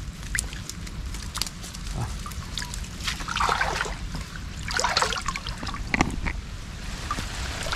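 Water splashing and dribbling, with scattered small clicks, as a lú fish-trap net is lifted and emptied; two larger splashes come about three and five seconds in.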